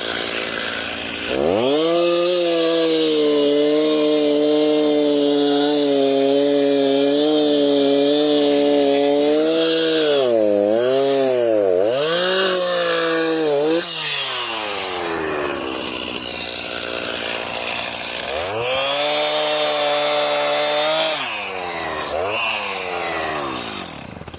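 Gasoline chainsaw cutting into a large oak log: it revs up and holds at high speed for several seconds, then its pitch dips and rises repeatedly before dropping back about fourteen seconds in, followed by a second, shorter cut. The log is being cut most of the way through rather than severed.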